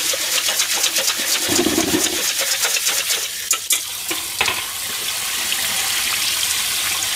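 Tap water running from a sink hose into a stainless bowl of rice as the rice is rinsed, with crackly splashing through the first few seconds. It then turns to a smoother steady pour as the cloudy rinse water is tipped out into the sink.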